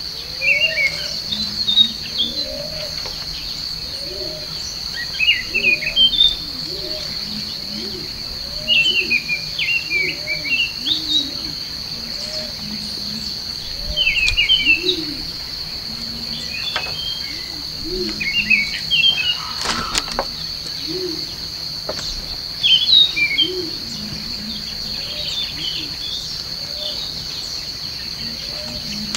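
Forest ambience: a steady high insect drone under repeated clusters of quick bird chirps, with lower arching calls repeating about once a second. A couple of sharp knocks come near the middle.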